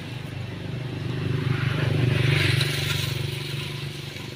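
A motorbike passing by unseen, its engine hum growing louder to a peak about halfway through and then fading away.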